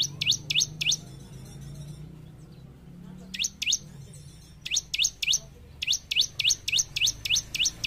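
Bar-winged prinia (ciblek) singing: runs of sharp, high notes, each sweeping downward, at about three to four a second, with short pauses between the runs. A low steady hum lies underneath.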